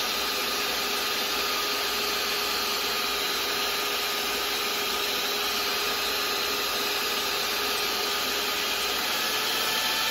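Sunbeam stand mixer running steadily, its motor turning the beaters through cocoa and almond-flour batter in a stainless steel bowl: an even whir with a faint steady hum in it.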